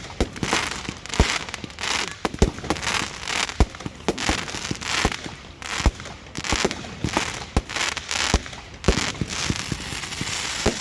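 Aerial fireworks at a large display going off in a rapid run of sharp, loud bangs, one or two a second, each followed by crackling.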